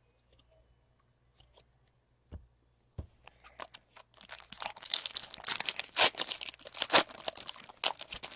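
A foil trading-card pack wrapper being torn open and crinkled: a few light clicks, then about four seconds of dense crackling with two louder snaps about a second apart.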